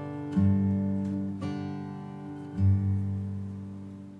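Background music: an acoustic guitar strumming three chords about a second apart, each left to ring and die away, fading out near the end.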